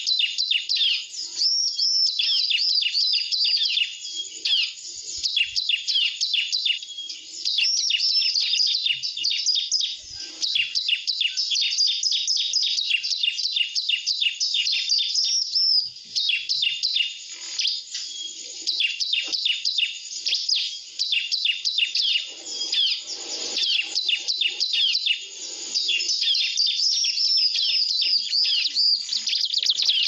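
Bar-winged prinia (ciblek) calls: a dense run of rapid high chirps and trills repeating almost without a break, with a few brief pauses. This is the ciblek lure call used to draw the birds in to glue-baited perches.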